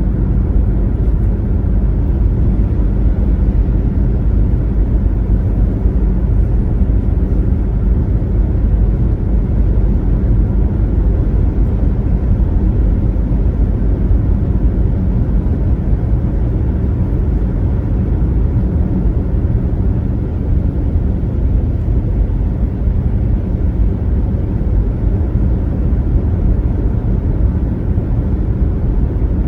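Car travelling at highway speed: a steady, low road and tyre rumble with engine drone, unchanging throughout.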